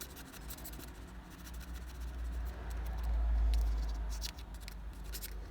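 Faint scraping and small clicks of old glue being cleaned off a rear-view mirror mounting button, with a low rumble swelling about three seconds in.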